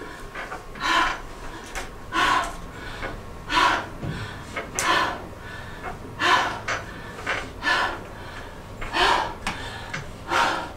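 A woman's loud, gasping breaths into a close microphone, one sharp breath about every second and a half in a steady rhythm.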